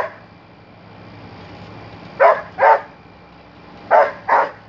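Dog barking in quick pairs while chasing a light: one bark right at the start, two about two seconds in and two more about four seconds in.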